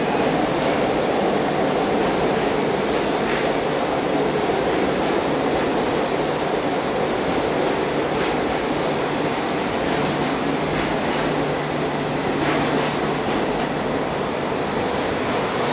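Indian Railways passenger coaches rolling past a platform as the train pulls out of the station: a steady rumble of wheels on rail, with a few faint clicks.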